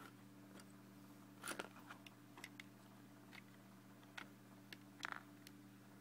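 LEGO puzzle box being handled: plastic bricks clicking and knocking in a few short, scattered clicks, the loudest about one and a half seconds in and about five seconds in, over a faint steady low hum.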